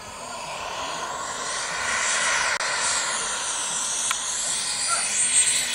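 Radio-controlled model jet on its landing approach: a steady rushing whine that grows louder as it comes in, with a high whistle sliding slowly down in pitch near the end.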